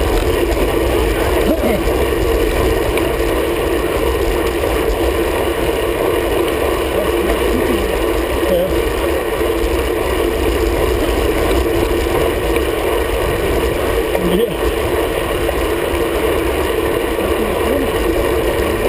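Steady rush of wind over the microphone and road noise from a road bike riding at speed in a group of cyclists, with a constant low rumble.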